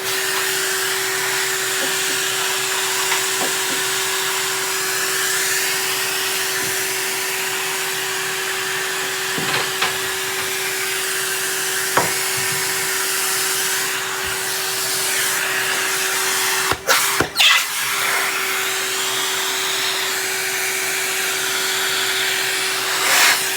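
Vacuum cleaner running steadily, a hiss with a steady hum, with a few light knocks of the nozzle and two brief drops in the sound about two-thirds of the way through.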